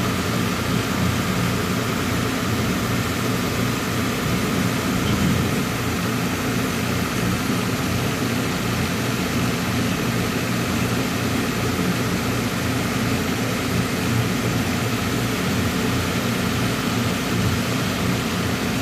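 Truck engine idling steadily, heard from inside the cab, a constant low drone with a faint steady whine above it.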